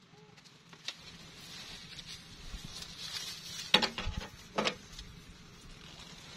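Crackling, rustling handling noise as the angler moves with a fishing rod, with scattered small clicks and two sharp knocks a little over halfway, less than a second apart.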